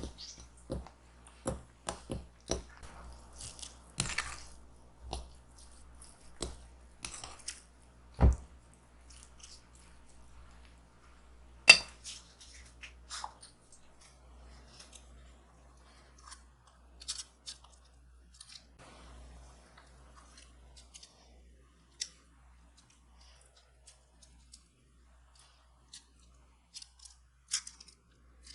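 Irregular clicks, taps and light scraping of kitchen food preparation, with a dull thud about eight seconds in and a sharp click about twelve seconds in, then sparser, fainter taps.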